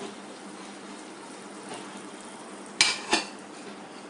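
Aluminium lid set onto an aluminium cooking pan: two quick metallic clanks about three seconds in, over the steady hiss of the pan simmering on a gas burner.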